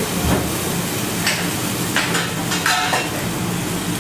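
Food sizzling in a pan on a gas burner as stock is poured in and stirred, with a low knock just after the start and several short clinks and scrapes of the utensil against the pan between about one and three seconds in, over a steady mechanical hum.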